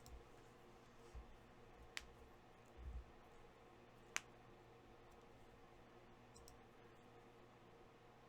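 Near silence with two sharp, short clicks about two seconds apart and a few soft low thumps.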